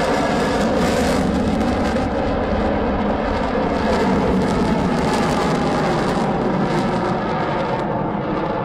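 Su-30SM fighter's twin AL-31FP turbofan engines: loud, steady jet noise as the aircraft manoeuvres overhead.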